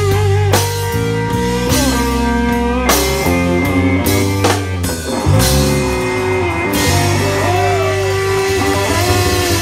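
Live blues band playing an instrumental passage: a Fender Stratocaster electric guitar plays notes that bend up and down, over bass and a drum kit.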